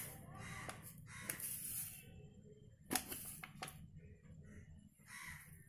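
Quiet handling sounds: a few light clicks and taps as jelly powder is shaken from a plastic packet into a steel mould and pressed around it by hand.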